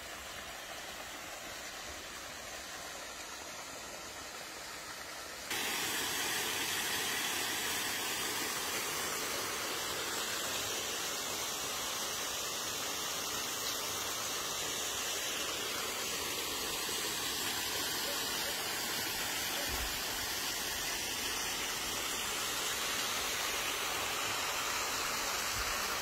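Steady rush of flowing water, an even hiss with no distinct splashes, stepping up louder and brighter about five seconds in.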